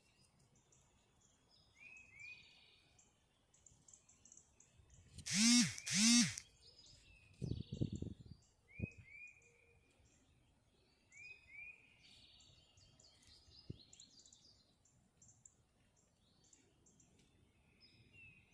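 Small songbirds chirping and calling throughout, with repeated short downward-sliding calls. About five seconds in come two loud calls, one after the other, from a duck or goose.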